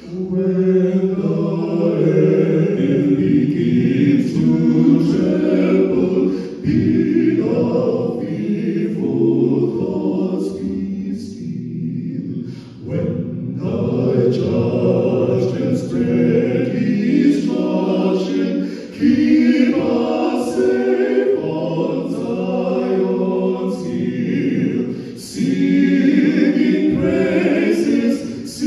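Male vocal quartet singing a hymn a cappella in close harmony through handheld microphones, in long held phrases with brief breaks for breath about every six seconds.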